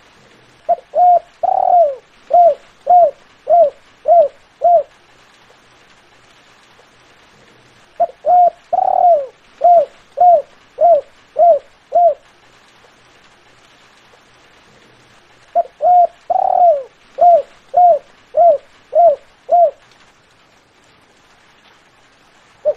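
Spotted dove (terkukur) cooing: three song phrases about seven seconds apart, each of a couple of short coos and one longer drawn-out coo, followed by five short evenly spaced 'kuk' notes. A fourth phrase begins right at the end.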